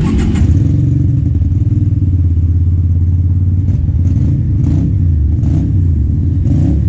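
Keeway V250fi's 250 cc V-twin engine idling steadily, a low even note from the exhaust.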